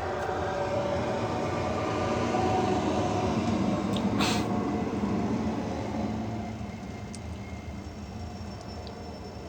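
A large vehicle passing by: a rumble that swells and then fades, with a short hiss about four seconds in.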